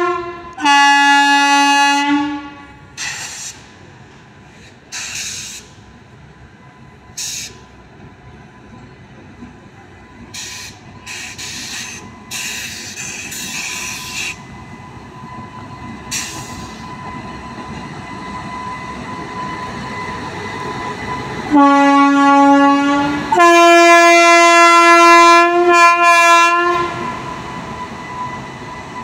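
WAG-9 electric locomotive sounding its two-tone horn: a lower-note blast about a second in, then, about two-thirds of the way through, a lower note of about two seconds followed at once by a longer higher note. In between come several short hisses and a faint steady whine as the locomotive rolls slowly.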